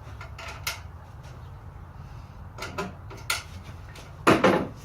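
Handling noises: a few light clicks and taps, then a louder clunk or rattle about four seconds in, over a steady low hum.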